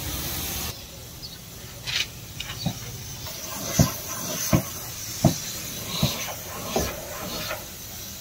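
Compressed-air hiss of spray painting on a pickup body. From about two seconds in, sharp knocks repeat roughly every three-quarters of a second.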